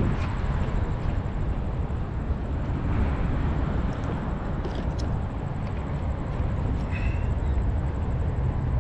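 Steady low rumbling outdoor background noise with a few faint ticks.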